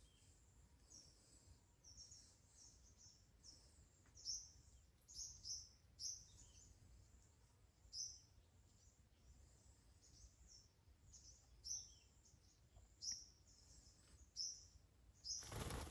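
A small bird chirping: short high notes repeating irregularly, about one or two a second, over a faint low rumble. A brief burst of noise comes near the end.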